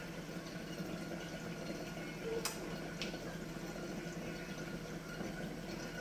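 Water circulating in a saltwater reef aquarium: a steady bubbling and trickling over a low hum, with two light clicks about halfway through, half a second apart.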